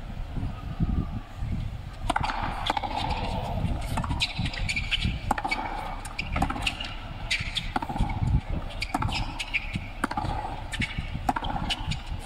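Tennis rally on a hard court. Sharp racket-on-ball strikes and ball bounces come about once a second, starting with the serve about two seconds in, over a low rumble.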